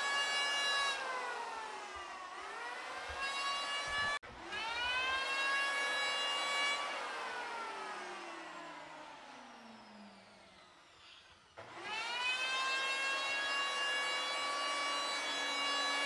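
Electric hand planer running at full speed with a high, many-toned whine. Its pitch dips and climbs back in the first few seconds, then it is switched off and winds down in a long falling whine. Near the end it is started again and spins quickly back up to full speed.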